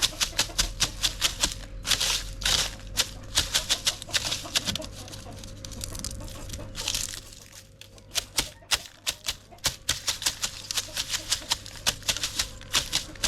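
Chickens pecking at feed on a hard surface: rapid, irregular sharp taps several a second, with short rustles of grain between.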